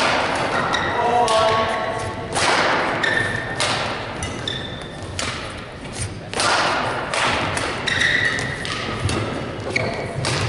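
Badminton rally: sharp racket hits on the shuttlecock every second or so, mixed with short squeaks of court shoes on the floor.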